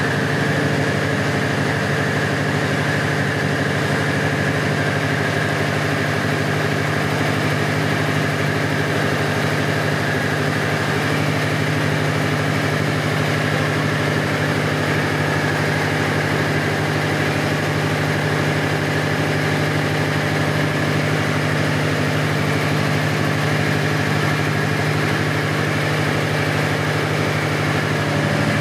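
Caterpillar diesel generator set running steadily at an even speed: a constant low engine drone with a steady higher whine above it.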